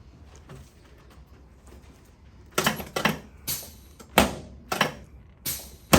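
A quick run of sharp knocks and clunks, about seven, irregularly spaced and starting about two and a half seconds in after a quiet start.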